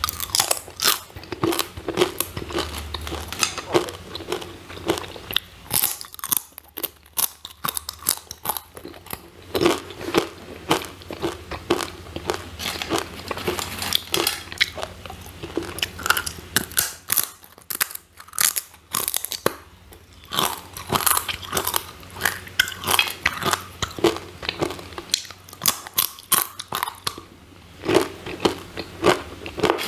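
Close-miked crunching of crispy sweet potato chips being bitten and chewed: a rapid run of sharp crackles, thinning out briefly twice.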